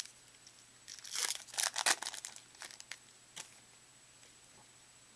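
Trading-card pack wrapper crinkling and tearing for about a second, starting about a second in, followed by a single soft click.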